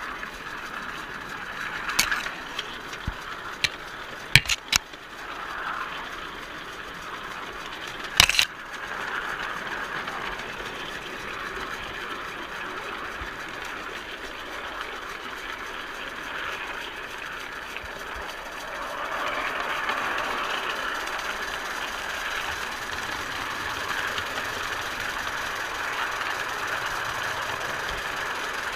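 Miniature live-steam locomotive running along its track: a steady rushing hiss with a few sharp knocks in the first eight seconds, getting louder about two-thirds of the way through.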